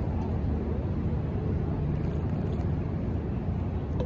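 Wind buffeting the microphone outdoors: a low, uneven rumble.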